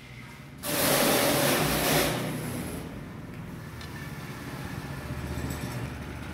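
Go-kart's 212cc single-cylinder engine revving loud for about two seconds as the kart accelerates, then dropping back to a steady, quieter idle.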